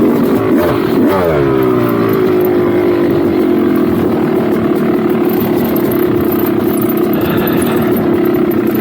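Dirt bike engine under way, revving up sharply about a second in, then falling back to a steady pitch.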